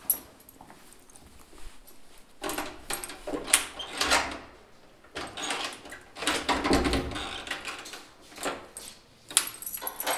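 A bunch of keys jangling and a key rattling and scraping in a door lock, in several spells from about two seconds in; the lock will not open.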